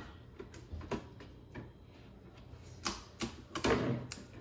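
Light clicks and taps of fingers picking at packing tape and handling the plastic case of an Epson Perfection V19 flatbed scanner, scattered at first and busier near the end.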